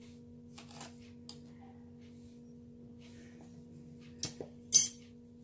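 Faint hiss of salt sprinkled over banana slices in a pan about half a second in, then two sharp kitchen clinks half a second apart near the end, over a steady low hum.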